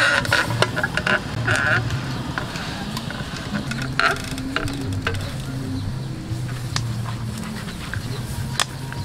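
Whole pig roasting on a spit over charcoal while being basted: scattered crackles and pops as glaze and fat drip onto the coals, over a low buzzing hum.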